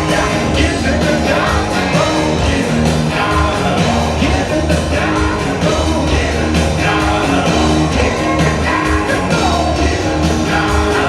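Hard rock music with singing over a driving bass and drum beat.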